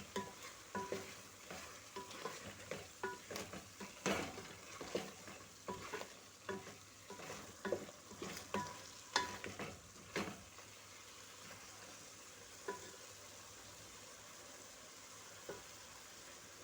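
A cooking stick stirring a pot of stew in the making, with quick knocks and scrapes against the pot for about ten seconds, then stopping. A steady faint sizzle from the pot continues, with two single knocks near the end.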